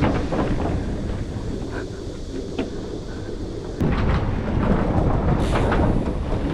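Steady low rumbling noise with scattered short knocks. The sound changes abruptly and grows louder nearly four seconds in.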